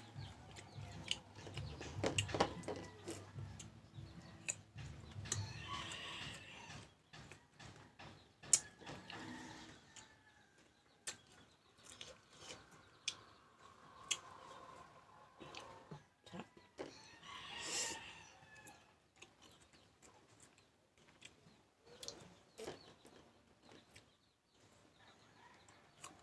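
Chickens clucking, with a louder call about eighteen seconds in, over short crisp crunches and chewing of raw green mango slices.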